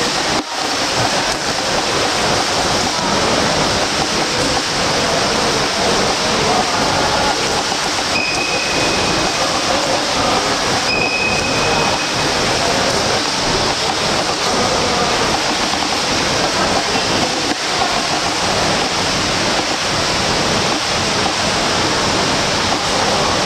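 Steady rush of splashing water from swimmers doing laps in an indoor pool. Two short high tones sound about eight and eleven seconds in.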